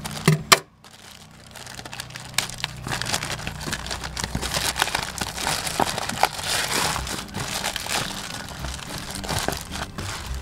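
Clear plastic bag crinkling and rustling as it is pulled and worked off a plastic-wrapped cardboard box by hand, with a short sharp snap about half a second in.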